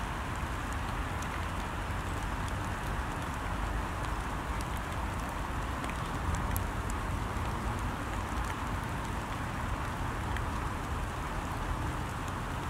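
Steady rain falling on a pond's surface, an even hiss with scattered faint drop ticks, over a low rumble.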